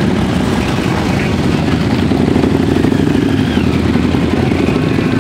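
A group of large touring motorcycles and trikes riding past one after another at low speed, their engines making a continuous low rumble that swells a little about halfway through as the nearer bikes go by.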